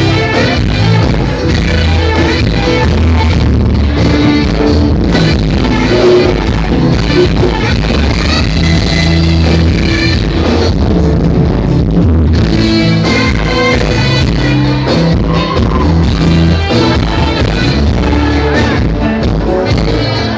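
Music played loud through a PA sound system during a sound check, with heavy held bass notes and a singing voice over them.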